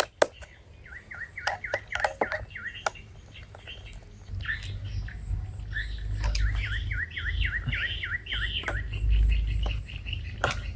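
A bird calling two quick runs of repeated short notes, over scattered sharp clicks and taps. A low rumble sets in about four seconds in.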